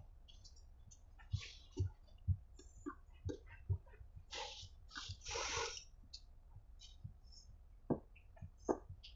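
Close-up eating sounds from a bowl of spicy seblak: irregular wet chewing clicks and mouth smacks, with a longer hissing slurp about four and a half seconds in.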